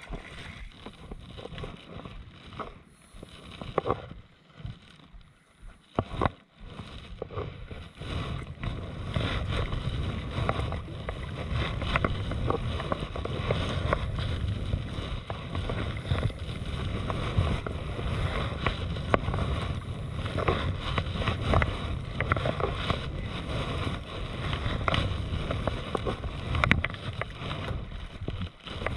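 Kayak paddle strokes splashing in calm sea water, with a low wind rumble on the microphone; quieter for a few seconds near the start, then steadier.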